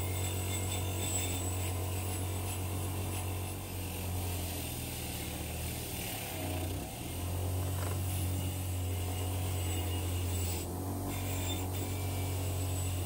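An electric tool motor running with a steady low hum that wavers briefly about halfway through.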